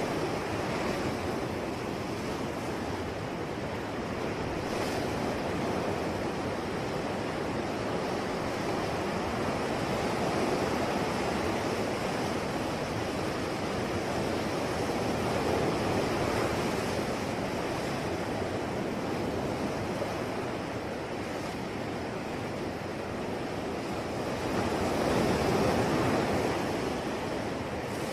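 Sea waves washing onto a shore, a continuous rushing wash that swells and ebbs slowly, with a larger wave breaking near the end.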